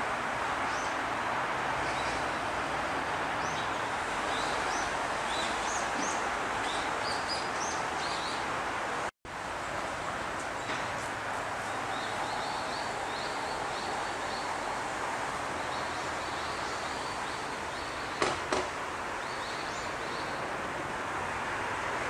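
Outdoor park ambience: a steady rushing background noise with small birds chirping high over it in short, repeated calls. The sound drops out for an instant about nine seconds in, and there are two sharp clicks near the end.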